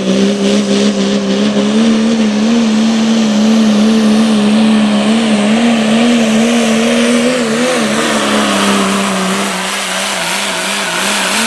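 Diesel engine of a Ford pickup pulling truck at full power hauling a pulling sled: a loud, steady high-pitched drone. The pitch wavers a little about seven seconds in and sags slightly near the end.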